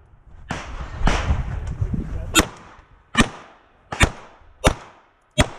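A semi-automatic pistol firing five shots in a steady string, about one every three quarters of a second, during a timed practical-pistol stage. Before the shots there is about two seconds of rough rustling and scuffing as the shooter moves into a new firing position.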